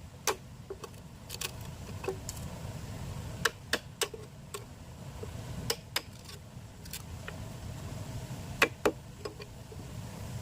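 Bamboo being worked by hand: about a dozen sharp knocks and taps at irregular spacing, the loudest a little past the middle, over a low steady rumble.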